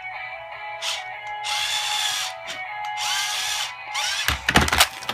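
Remote-control Strawberry Shortcake toy car playing its electronic tune and sound effects over the whir of its small motor. A loud clatter of knocks and thumps starts about four seconds in.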